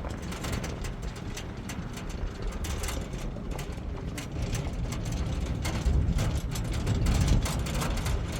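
Steady low rumble of a running vehicle, with frequent rattling clicks through it; it gets louder from about six seconds in.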